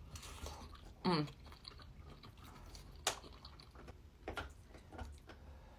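Close-up chewing of instant noodles, with a short sound falling in pitch about a second in and a sharp click about three seconds in.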